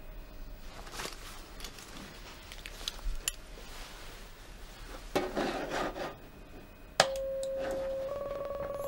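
A few faint clicks and a brief rustle, then about seven seconds in a steady electronic beep tone starts suddenly from the computer's DNA-comparison program and turns into a rapid pulsing about a second later.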